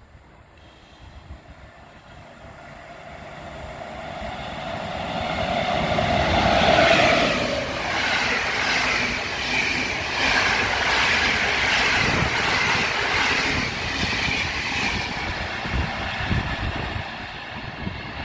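Passenger train hauled by an EU07A electric locomotive running through the station. The sound builds over several seconds and is loudest as the locomotive goes by. It is followed by a steady rush and rhythmic clatter of the coaches' wheels, which slowly eases off.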